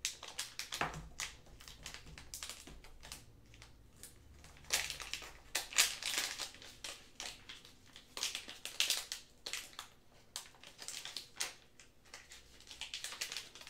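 Clear plastic packaging crinkling and crackling in irregular bursts, with small clicks, as a small USB-C adapter is unwrapped by hand.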